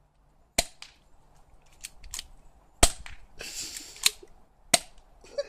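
BB gun firing three sharp shots about two seconds apart, with fainter clicks in between.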